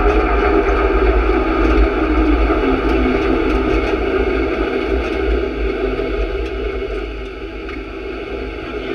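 Steady vehicle engine noise mixed with low wind rumble on an onboard camera, easing off a little near the end.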